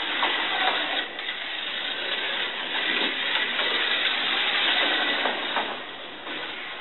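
Modified SCX Compact 1/43 scale Mercedes DTM slot car running laps on plastic track: its small electric motor whirring and the car rattling along the slot, swelling and falling as it comes near and goes away several times, then easing off near the end.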